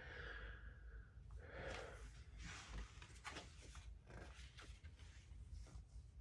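Near silence with faint rustling and a few small clicks.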